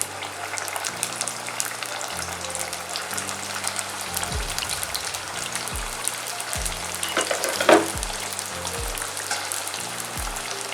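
Steamed momos frying in oil in a kadhai over a low flame: a steady sizzle with small crackles.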